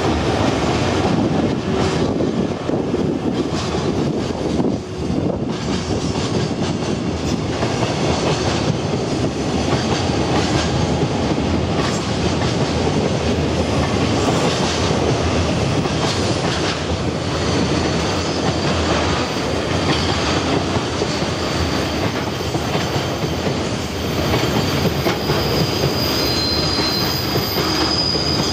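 Freight train of loaded Koki container flatcars rolling past close by: a steady rumble with the clatter of wheels over rail joints, and a thin, high wheel squeal setting in near the end.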